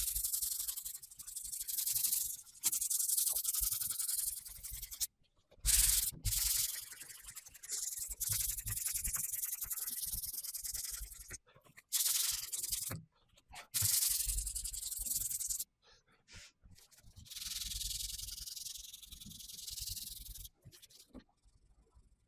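Hand sanding primer on a VW T25 van's body panel: bouts of scratchy, hissing rubbing a few seconds long, broken by short pauses.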